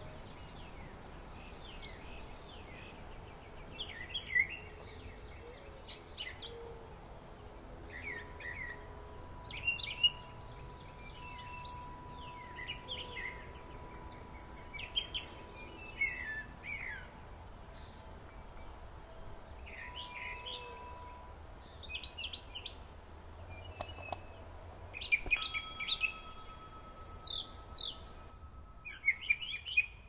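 Wild songbirds chirping and calling, many short calls scattered throughout and coming thicker near the end.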